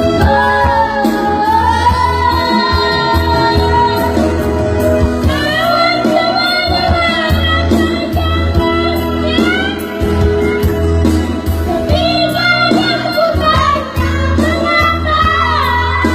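A five-year-old child singing a melody with long, held notes over instrumental backing music with a steady bass.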